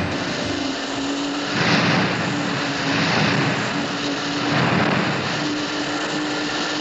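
Cartoon motor sound effect: a steady engine drone under rushing water spray as water skis skim across the water, the rush swelling every second or two.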